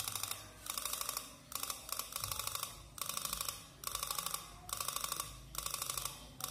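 Brake-light flasher module with a relay, chattering in rapid bursts of clicks about every 0.8 s as it strobes the LED underbody lights.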